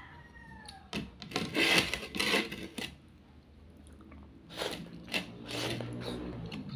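A person slurping and sucking up rice and bottle gourd straight from a plate with the mouth, no hands, in several short, noisy bursts.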